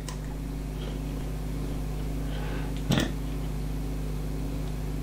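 Steady low electrical hum of room tone, with a single computer mouse click about three seconds in.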